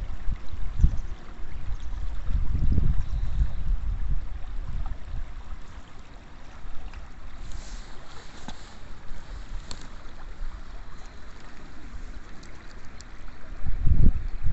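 Wind buffeting the microphone in uneven gusts, a low rumble that swells and fades, over faint water lapping at a stony bank.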